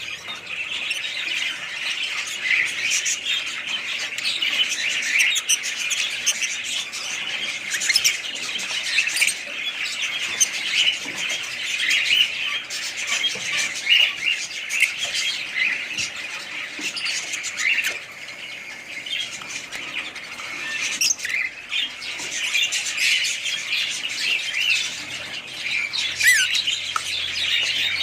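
A flock of small pet parrots chattering and squawking together, many calls overlapping in a continuous high-pitched din that dips briefly past the middle.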